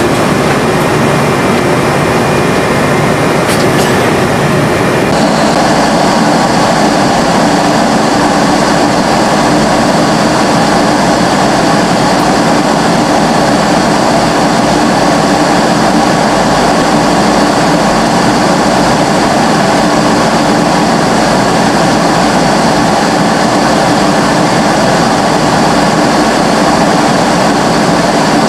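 Steady loud cabin noise of a four-engine jet airliner in cruise flight, engine and airflow noise with a faint steady hum. Its tone shifts slightly about five seconds in.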